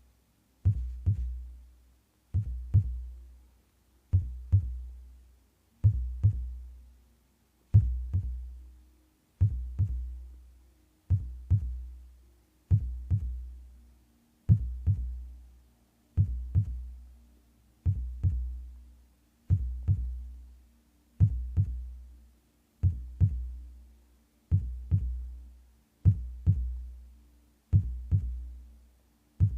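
Heartbeat sounds: slow, even double thumps (lub-dub), deep and booming, about one beat every 1.7 seconds, each fading out before the next. A faint steady hum sits behind them.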